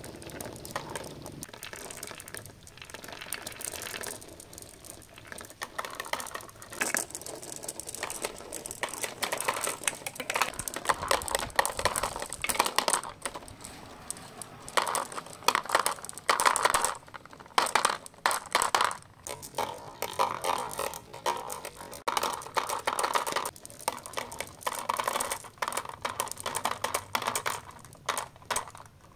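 Plastic balls rolling down a sand-surfaced slope, knocking against plastic straw pegs and dropping into a plastic toy dump truck bed. A dense run of irregular clicks and knocks, busier and louder in the second half.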